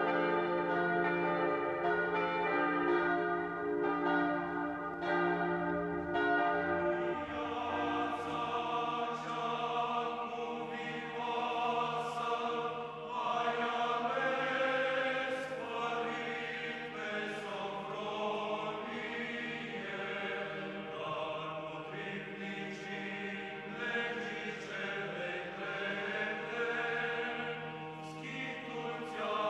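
Orthodox church chant sung by a choir of several voices, opening over a steady held drone that stops about seven seconds in. A church bell rings along with it.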